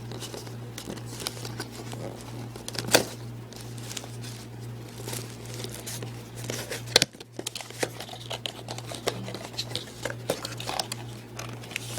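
Product packaging being handled and opened one-handed: crinkling and rustling with scattered small clicks, and two sharper knocks about three and seven seconds in, over a steady low hum.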